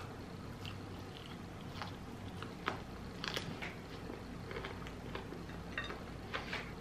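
Close-miked chewing of fried chicken chunks: soft crunches and wet mouth clicks, scattered every second or so.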